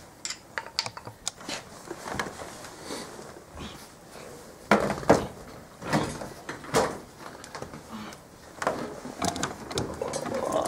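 Irregular knocks, clicks and clatter of tools and interior parts being handled during dash disassembly, with the loudest knocks about five seconds in and again near seven seconds.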